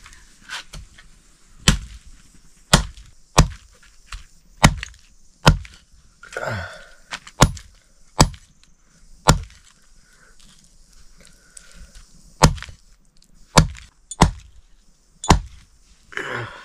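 A blade chopping a chicken into curry pieces, cutting through meat and bone: single heavy chops at irregular intervals, about one a second, with a pause of a couple of seconds in the middle.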